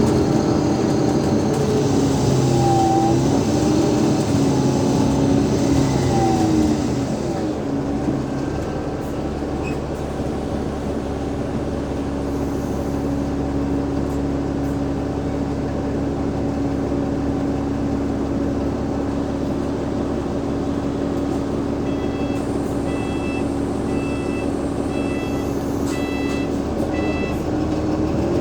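Cummins ISL8.9 diesel engine of an Alexander Dennis Enviro500 MMC bus, heard from on board. The engine note falls as the bus slows over the first several seconds, then settles to a steady idle. Near the end a series of short high beeps sounds about once a second, and the engine pitch begins to rise again.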